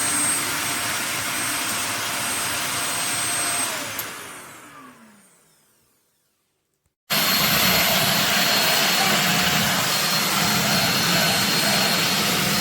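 Belaco Dual corded upright vacuum cleaner's 700 W motor running with a steady whine. About four seconds in it is switched off and winds down in a falling pitch to silence. About seven seconds in it comes back abruptly at full speed.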